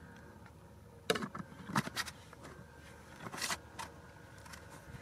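Hand handling a clear plastic jar: a few short clicks and brief scraping rustles, the first about a second in and the fullest around three and a half seconds.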